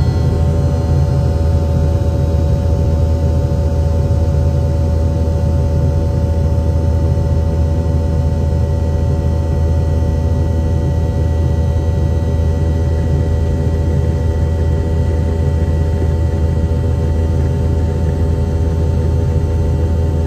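Rolls-Royce BR715 turbofan of a Boeing 717-200 at climb thrust, heard from inside the cabin right beside the rear-mounted engine. A loud, steady low rumble with several steady whining tones above it.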